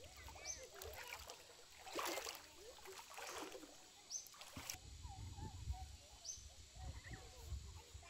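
Quiet pondside ambience with birds calling, including a short high chirp repeated every couple of seconds. A few brief rustling splashes come about two to four and a half seconds in, as a caught fish is handled and dropped into a pot of water.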